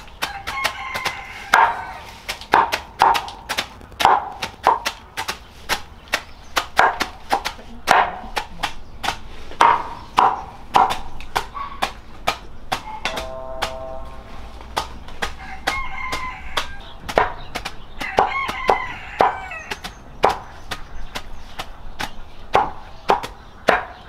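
Cleavers chopping leafy greens on a wooden board: a steady run of sharp chops, two or three a second. A rooster crows several times in the background, near the start and again in the second half.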